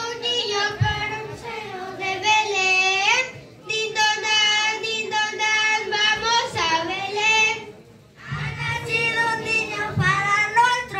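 A group of children singing a Spanish Christmas carol (villancico) in sustained phrases, with short pauses about three and a half and eight seconds in.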